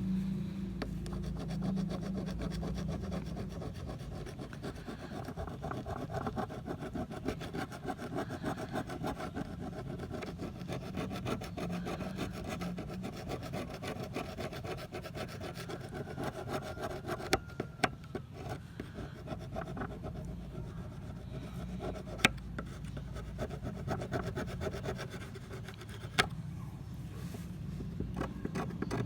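Rapid, steady back-and-forth scraping strokes of hand rust-removal work on an old pair of pliers, with a sharp click now and then.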